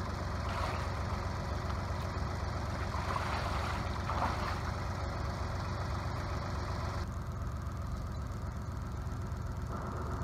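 An engine running steadily at idle, an even low hum.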